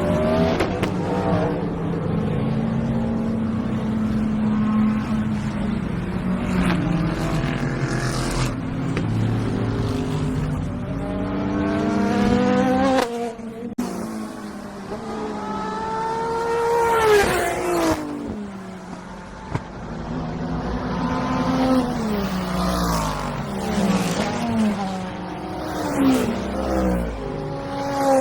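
IMSA race cars running at speed past the track, one after another. Their engines rev up through the gears and drop in pitch as they go by, with one loud pass about two-thirds of the way through and several cars in quick succession near the end.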